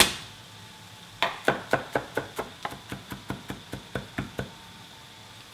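Chef's knife mincing garlic cloves on a wooden cutting board: one knock at the start, then a quick run of chops, about five a second, getting softer and stopping about four and a half seconds in.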